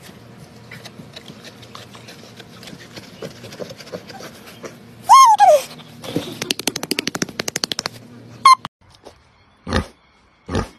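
A pig squealing once, loudly, the call falling in pitch, about five seconds in, then a fast run of short grunts, about ten a second, for nearly two seconds; a few short sounds follow near the end.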